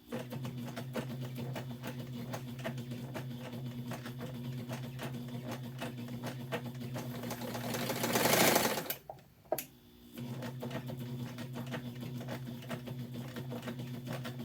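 Bernina 801 electronic sewing machine running and stitching, a steady motor hum with rapid, even needle clicking. A loud rushing noise swells just before the machine stops about nine seconds in. After a pause of about a second it starts stitching again.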